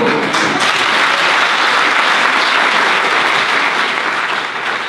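Audience applause, breaking out suddenly and holding as a dense steady clapping.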